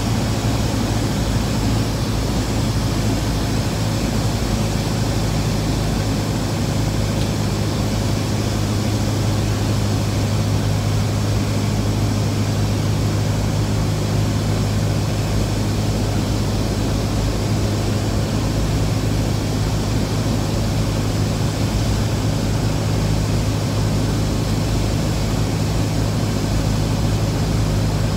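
Piston engine and propeller of a single-engine light aircraft in flight, heard from inside the cockpit: a loud, steady drone with a strong low hum under an even hiss.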